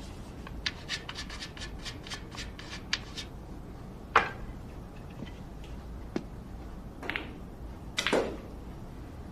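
Billiards practice: a quick run of scratchy rubbing strokes, like chalk worked onto a cue tip, then single sharp clicks of the cue striking balls, with a louder knock and rattle of balls near the end.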